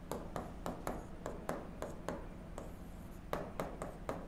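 Pen tapping and scraping on an interactive whiteboard screen while words are written by hand: a quick, irregular run of light taps, about three or four a second.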